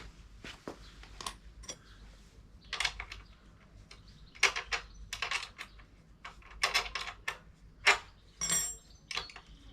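Metal hand tools clinking and rattling against the motorbike's rear chain tensioner nuts as they are loosened, in short irregular clusters of sharp clicks, with a brief ringing clink near the end.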